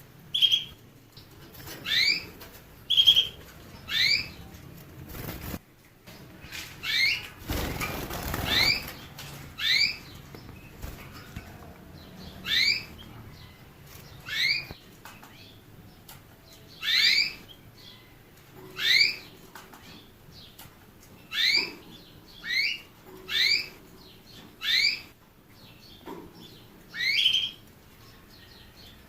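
A canary giving short, sharp rising call notes, one every second or two, rather than full song. About eight seconds in comes a brief rustling burst, like wings flapping.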